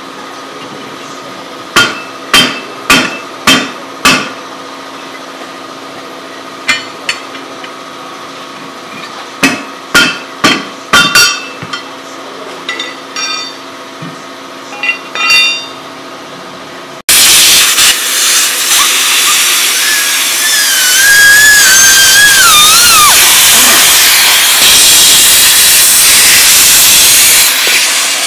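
Hammer blows on metal, ringing sharply in quick runs of four or five strikes over a steady mechanical hum. About two-thirds of the way in, this cuts abruptly to a loud, steady hiss of escaping air or spray with a wavering high whistle in it.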